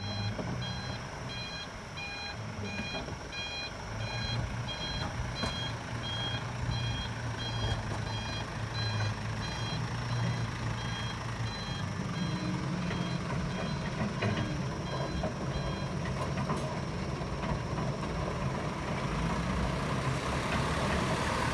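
Back-up alarm on a heavy machine, an excavator or dump truck, beeping evenly at about one and a half beeps a second over its engine running. The beeping stops near the end while a rushing noise grows louder.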